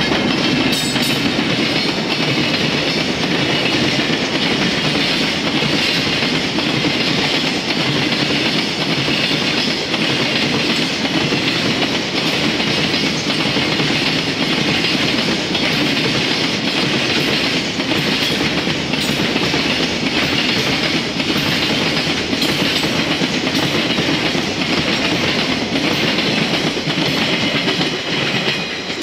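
Freight train of container wagons passing close by, a steady loud rolling noise with the wheels clattering rhythmically over rail joints. The sound falls away near the end as the last wagons go by.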